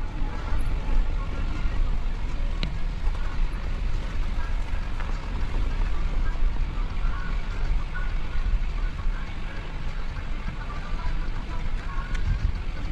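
Car driving slowly down a cobblestone road: a steady low rumble of engine and tyres on the stones.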